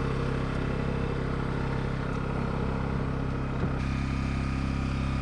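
Steady low drone of an engine running on a bowfishing boat, even in pitch and level.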